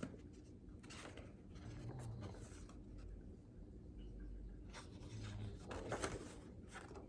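Faint rustling and scraping of packing paper and papers being handled and moved while searching through a package.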